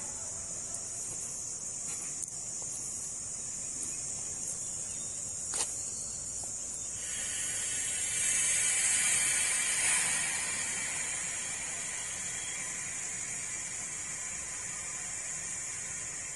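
Insects droning in a steady high-pitched chorus that swells louder about eight to ten seconds in, with one sharp click about five and a half seconds in.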